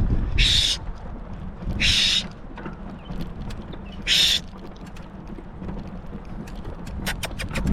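Wind rumbling on the microphone, broken by three short, loud hisses and scattered sharp clicks near the start and end.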